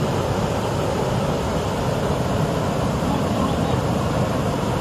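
Steady, even rush of a rain-swollen stream running high after heavy rain.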